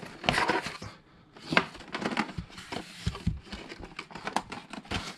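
Clear plastic bag and plastic blister packaging rustling and crackling in the hands while a hot glue gun is unpacked, with irregular short knocks and clicks from handling.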